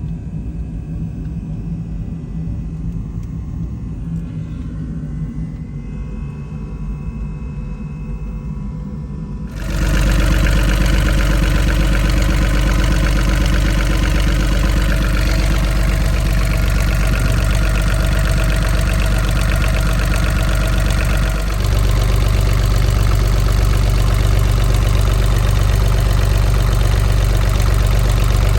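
Boat's marine diesel engine idling with a steady low throb. It is heard more faintly at first, then turns abruptly much louder and fuller about ten seconds in, and shifts slightly about twenty seconds in.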